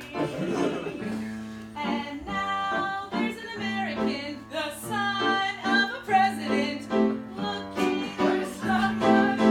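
Music: a guitar-like plucked string accompaniment with sustained bass notes, and a singing voice over it.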